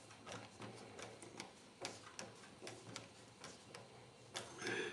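Faint, irregular small clicks and ticks from a fin's mounting bolts being done up tight, metal tool on bolt and fin, with a brief louder handling noise near the end.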